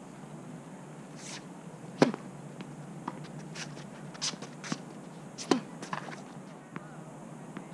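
Tennis rally on a hard court: two loud racket strikes on the ball, about two seconds in and again about three and a half seconds later. Between them come fainter hits and ball bounces from the far end, and shoe scuffs on the court.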